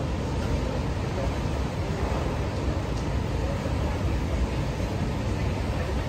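The Rhine Falls and the churning river below them rushing steadily: a deep, even wash of water noise with no breaks.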